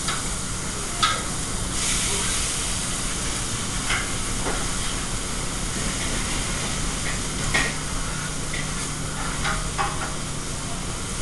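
Restaurant kitchen line during service: a steady sizzling hiss of food cooking on the range over the steady hum of the exhaust hood, broken by a few short clinks and knocks of pans and utensils.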